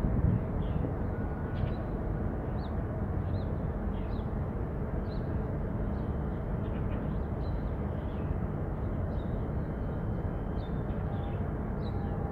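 Small birds chirping over and over, short high chirps every half second or so, over a steady low rumble.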